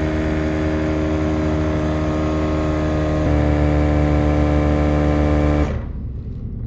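Portable electric tyre compressor running steadily while inflating a flat tubeless motorcycle tyre. Its pitch steps up slightly about three seconds in, and it cuts off about a second before the end.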